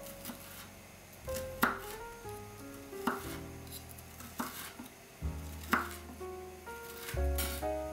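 Chef's knife chopping wild chives (dallae) on a wooden cutting board: sharp knocks of the blade on the board at uneven intervals, about one a second, over soft background music.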